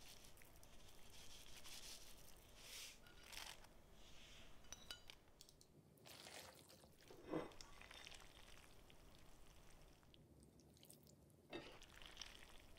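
Quiet cooking-handling sounds: metal tongs tossing stir-fried noodles in a pan, with faint scattered clicks, a louder knock about seven seconds in and a smaller one about eleven and a half seconds in.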